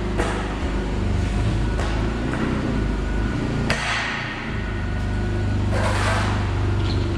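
Steady low mechanical hum of workshop machinery, with several metallic knocks and clunks scattered through it, two of them trailing off into a short scraping rush.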